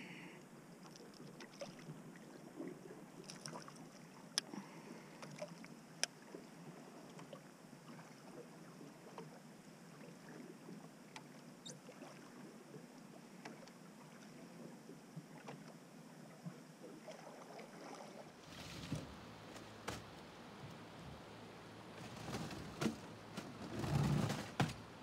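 Water sounds around a drifting river boat: a steady hiss with a few scattered light clicks. About three-quarters of the way in it turns into louder, uneven low rumbling.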